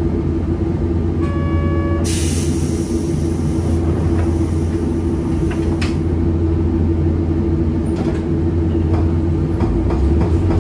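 Hankai Tramway streetcar standing at a stop: a steady low hum from its equipment, a short buzzer tone about a second in, then a hiss of compressed air as the pneumatic side door slides shut, ending in a knock about six seconds in. Near the end the low hum of its nose-suspended traction motors grows as the tram starts to pull away.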